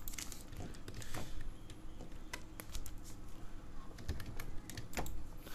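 Computer keyboard keys being typed, a scattered run of irregular light clicks as text is entered.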